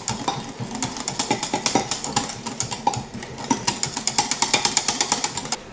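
Wire balloon whisk stirring thick homemade cream in a glass measuring jug, its wires clicking rapidly and unevenly against the glass.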